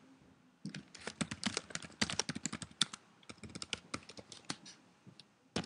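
Typing on a computer keyboard: an irregular run of quick key clicks after a short pause, thinning out later, with one louder click near the end.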